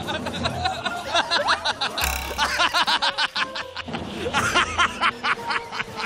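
Background music with a group of people laughing and snickering over it. About two seconds in, a brief loud burst with a low thud cuts through.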